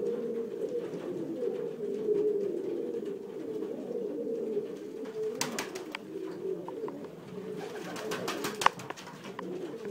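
Domestic pigeons cooing continuously in a low warbling murmur, with a few sharp clicks and knocks about halfway through and a louder scatter of them near the end.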